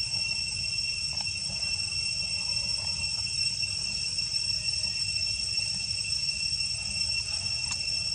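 Insects droning steadily, one unbroken high-pitched tone with a fainter higher one above it, over a low rumble.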